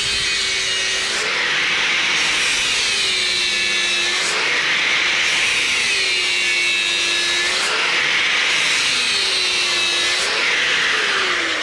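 Angle grinder grinding down chisel marks on the face of an old anvil, a steady loud grinding hiss. The motor's pitch sags each time the disc is pressed into the metal and picks up again as it is eased off, four passes in all.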